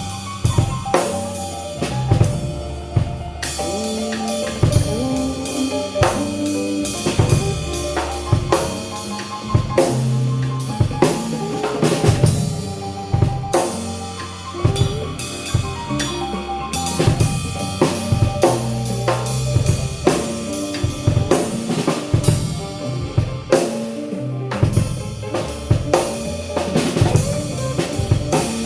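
Band music with a prominent drum kit: bass drum, snare and cymbal hits keep a steady beat under bass and other pitched instruments.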